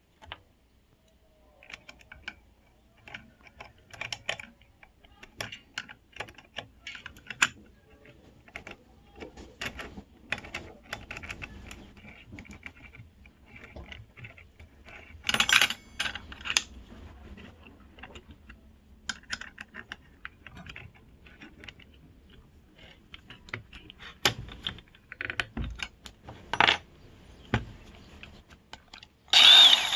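Hands handling the mini circular saw and its small metal and plastic parts: irregular clicks, taps and light metallic rattles. Near the end a short loud burst as the saw's motor starts.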